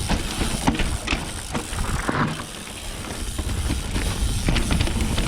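Full-suspension mountain bike ridden fast down a rough dirt trail: tyres rolling over the ground with the bike rattling and knocking over bumps and roots, and wind rumbling on the microphone.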